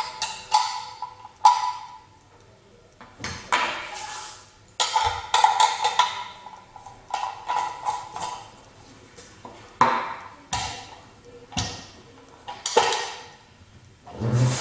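Metal parts of a manual meat grinder knocking and clinking as they are handled, about a dozen sharp strikes at irregular intervals, several of them ringing briefly at one pitch.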